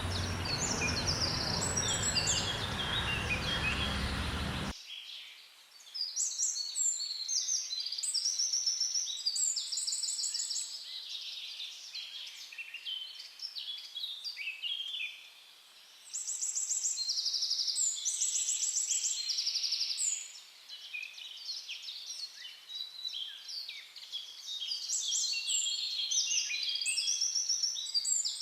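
Small songbirds singing: many high chirps and fast trills, overlapping and in bouts. For the first few seconds they sit over a loud, even background noise that cuts off abruptly about five seconds in, after which the birdsong is clear.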